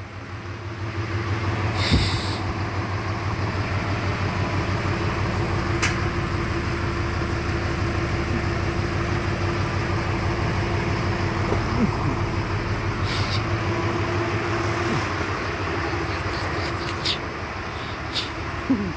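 Farm tractor's diesel engine running steadily at a constant speed, heard from inside its cab, with a faint steady whine for most of the time and a few sharp knocks and rattles.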